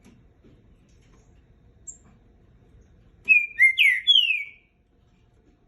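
Green-winged saltator (trinca-ferro) singing one loud phrase of clear whistled notes, several sliding downward, about three seconds in. A faint high chirp comes before it.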